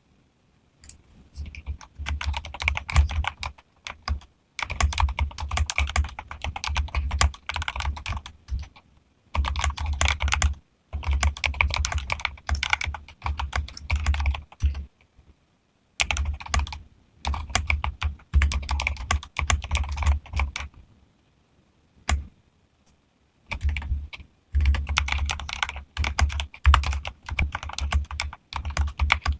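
Fast typing on a modified mechanical keyboard, the keys giving deep thocky clacks. It comes in runs of several seconds, with short pauses after about four, eight, fifteen and twenty-two seconds.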